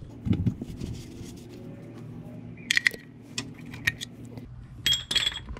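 Oil drain plug being threaded back into the oil pan and tightened with a 3/8-inch ratchet and socket: a few scattered sharp metallic clicks and clinks, bunched about three seconds in and again near the end.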